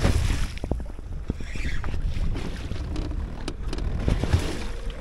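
Wind buffeting the microphone and choppy water slapping against a boat's hull, a steady low rumble with scattered light clicks and knocks.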